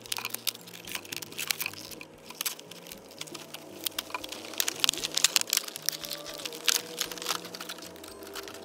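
Stiff clear plastic clamshell blister pack being cut with a folding knife and pried apart by hand: a dense, irregular run of sharp crackles and clicks, loudest about five seconds in.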